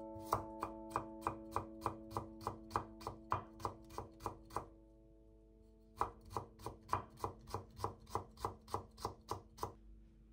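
Kitchen knife cutting carrot into thin strips on a bamboo cutting board: steady, even knocks of the blade on the wood, about three to four a second. The cutting stops for about a second midway, then resumes a little faster before ending near the end.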